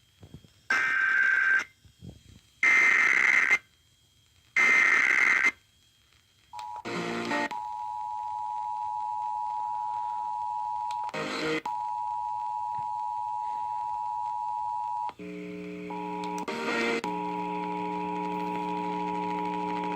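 Emergency Alert System broadcast test over radio: three short bursts of shrill, warbling SAME header data, then the steady two-tone EAS attention signal (853 and 960 Hz). The attention signal is crossed by two brief crackles, and a lower buzzing chord of tones joins it about 15 seconds in.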